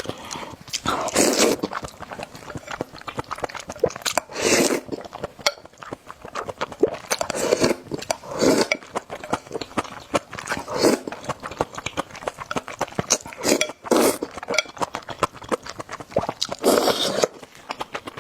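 Close-miked eating of spicy noodles: about nine short slurps a second or several apart, with wet chewing and small clicks in between.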